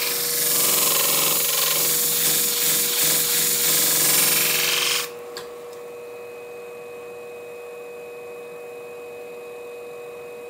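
Scimech Flathone sharpening machine's spinning abrasive disc grinding a shear blade's edge near the tip: a steady hiss that stops abruptly about five seconds in as the blade comes off the disc, leaving the machine's motor humming steadily.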